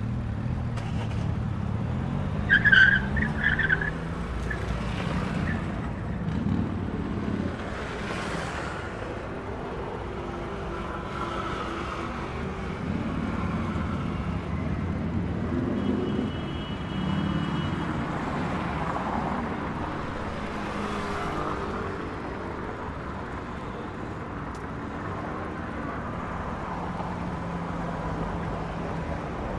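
City street traffic: motor vehicles passing with their engines running, one rising in pitch as it speeds up in the first few seconds, with a short louder burst of higher sounds about three seconds in.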